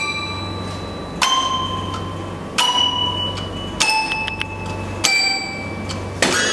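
Slow music of single struck, bell-like metallic notes, five in all, about one every second and a quarter. Each note rings on and fades, over a low steady hum.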